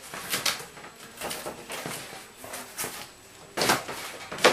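Large cardboard tri-fold display board being handled: rustling and scraping of stiff cardboard broken by a few sudden knocks, the loudest near the end as the board is brought down and moved aside.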